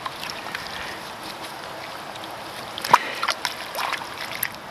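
River water trickling and lapping at the bank's edge, with a sharp splash about three seconds in and a few smaller splashes after it as a fish is released into the water.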